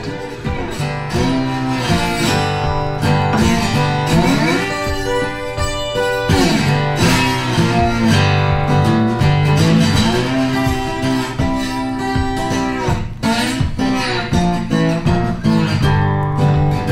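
Background music: strummed acoustic guitar in a country style, with sliding notes.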